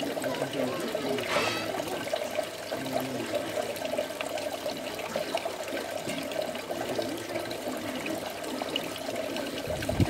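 Water running steadily in a thin stream from a garden fountain's tap-shaped spout, splashing into the water-filled pot below.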